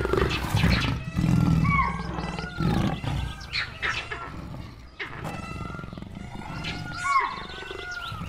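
Two Bengal tigresses growling low and rough at the close of a territorial fight, loudest in the first couple of seconds and fading as they move apart.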